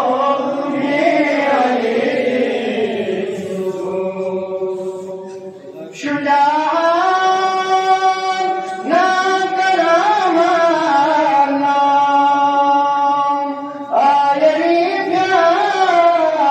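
A man chanting a Balti qasida solo into a microphone, in long melodic phrases with held, wavering notes. A new phrase starts about six seconds in, another a little before halfway, and another near the end.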